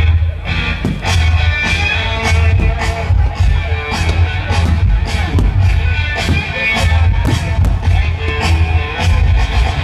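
Loud rock music with a steady bass beat and regular drum hits.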